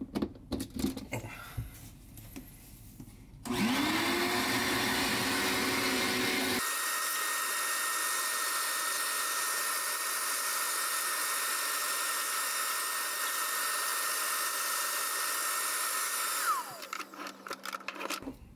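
A wet/dry shop vacuum is switched on about three and a half seconds in, whines up to speed and runs steadily while cleaning out a desktop computer case. It is switched off near the end and winds down with a falling whine. A few handling clicks come before and after it.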